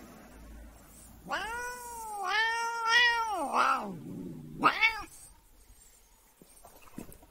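A long-haired domestic cat gives one long, drawn-out meow lasting nearly three seconds that drops in pitch at its end, then a short meow about half a second later.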